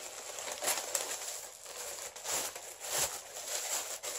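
Tissue paper crinkling and rustling in uneven swells as a candle jar is unwrapped from it by hand.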